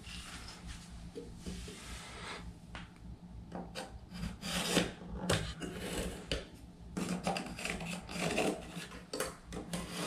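A Milwaukee cordless oscillating multi-tool with a flush-cut blade rasping through drywall in uneven, stop-and-start strokes. It is loudest about halfway through.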